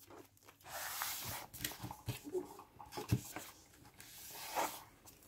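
Paper rustling and rubbing as hands press a book page down onto double-sided tape to seal a folded pocket page, with a soft knock about three seconds in.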